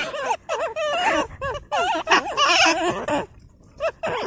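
Marmots giving a rapid series of short, whiny squeals that waver up and down in pitch, with a brief pause about three seconds in.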